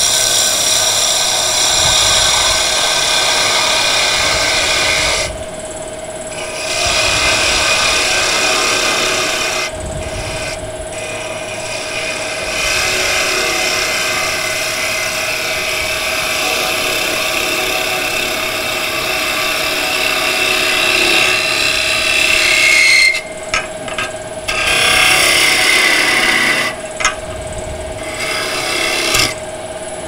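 Wood lathe running with a steady motor tone while a hand-held turning tool cuts the spinning wood, a continuous scraping cutting noise. The cutting drops out briefly a few times as the tool comes off the wood, twice near the end.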